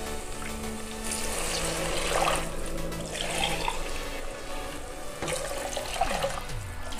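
Coconut milk poured from a plastic jug into a pressure cooker of sautéed vegetables, splashing and gurgling in several pours.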